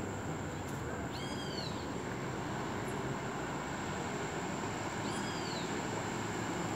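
A bird calls twice, each a short call that rises and falls in pitch, about four seconds apart, over a steady low background rumble.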